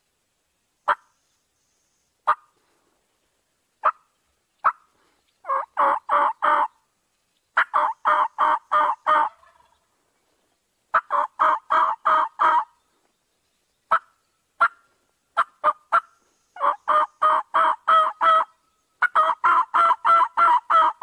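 Turkey calls: single sharp clucks at first, then runs of five to nine evenly spaced yelps at about four to five a second. The last run, near the end, is the longest.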